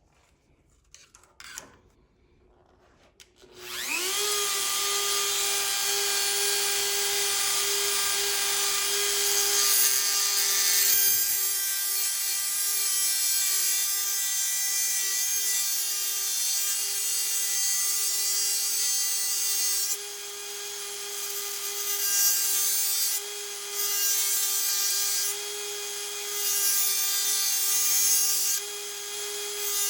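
A Dremel rotary tool is switched on about three and a half seconds in and spins up to a steady high whine. Its bit then works against the metal of the package opener, and the grinding noise drops away and returns several times as the bit lifts off and touches again near the end. A few faint clicks of handling come before it starts.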